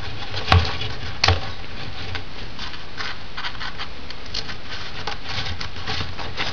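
Kitchen shears snipping through a sheet of dried fruit leather: a run of soft cuts and rustles, with two sharp clicks about half a second and just over a second in. A steady low hum sits underneath.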